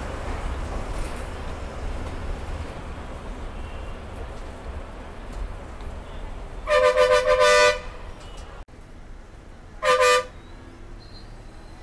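A vehicle horn honks for about a second, then once more briefly about three seconds later, over a steady low road and traffic rumble.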